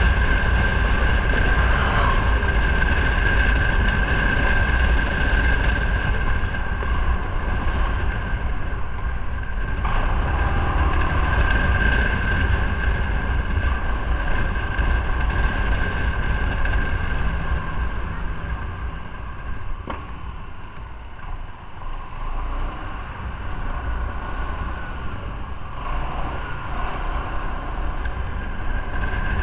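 Motorcycle riding at low city speed, its engine running under steady wind and road noise on the microphone. The sound drops back for a couple of seconds about twenty seconds in, then picks up again.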